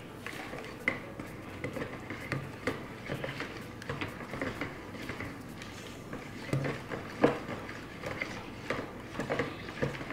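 Irregular light knocks and scrapes of an immersion blender's metal shaft against a plastic pitcher as raw cold-process soap batter is stirred by hand with the blender switched off. Two knocks, about a second in and just past seven seconds, are louder than the rest.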